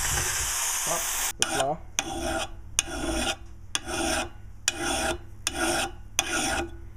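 A power drill boring through timber, cutting off abruptly about a second in. Then a round file rasping back and forth across the cutting teeth of a Rapid Bore bit to sharpen them, about one stroke a second with clicks between the strokes.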